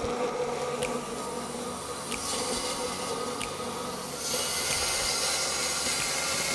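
Oxy-fuel cutting torch on a circle burner hissing steadily as it cuts a 1-inch hole through steel square tubing, with a few faint pops. About four seconds in, the hiss gets louder and brighter.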